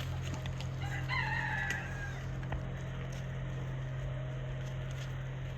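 A rooster crows once, about a second in, a single call of roughly a second, over a steady low hum.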